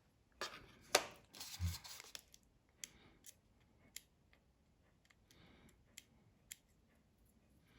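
Small hand tools clicking and scraping on an opened iPhone 5S, with short rasps of adhesive tape being worked loose. The sounds cluster in the first two seconds, then come as scattered single clicks.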